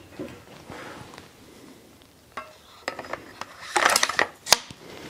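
Metal clicks and clinks of a Browning Maxus 2 semi-automatic shotgun being reassembled, its barrel and forend being fitted back onto the action. A few light clicks come about halfway through, then a cluster of rattling clinks and a single sharp click near the end.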